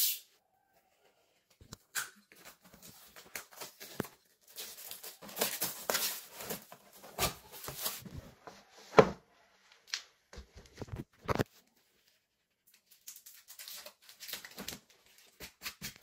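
Drone packaging being opened by hand: tearing and crinkling of wrapping with scattered clicks and knocks, the sharpest knock about nine seconds in.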